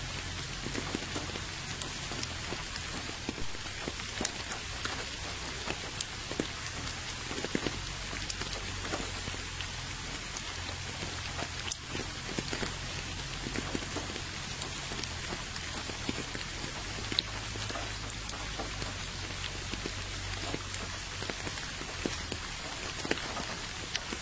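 Steady rain falling into a puddle, an even hiss with many single drops splashing distinctly on the water.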